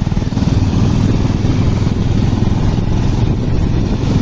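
Motorcycle engine running steadily while riding at road speed, with wind buffeting the microphone.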